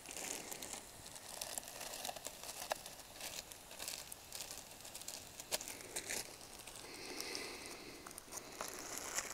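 Faint crinkling of a plastic zip bag as sliced mushrooms are tipped into a small cast-iron Dutch oven, then scattered light clicks and scrapes of a wooden spoon stirring them in the pot.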